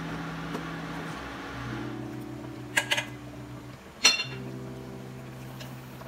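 A stirring spoon knocks against the metal inner pot of a rice cooker full of rice porridge. There is a quick double clink about three seconds in, then a sharper clink a second later that rings briefly, over soft held background tones.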